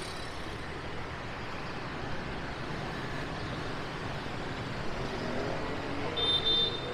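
Steady city street traffic: motorbikes and cars passing in a continuous hum of engines and tyres. A high-pitched beeping tone starts near the end.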